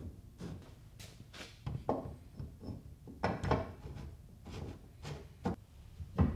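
Irregular clicks and knocks of parts being handled as a bash-bar standoff is fitted into a car's front bumper and tightened with a ratchet wrench, the loudest sharp click near the end.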